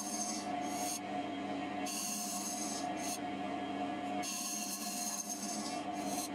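JIB W0903X wood lathe running with a steady motor hum while a cutter in a homemade pivoting sphere-turning jig hollows a spinning wooden bowl. The high scraping noise of the cut comes and goes in stretches of about a second as the tool bites and is eased off.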